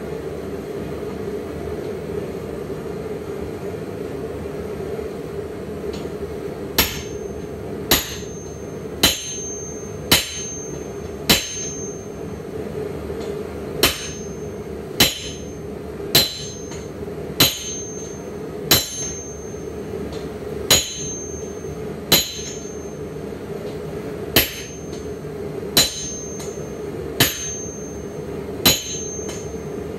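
Striker's sledgehammer hitting hot steel held on an anvil, forging tongs: sharp ringing blows about one a second, in runs of four or five with short pauses, starting about seven seconds in. A steady drone runs underneath.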